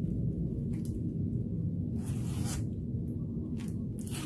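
Short scratchy rustles of ribbon and plastic lei netting being handled and tied, the longest about two seconds in, over a steady low hum.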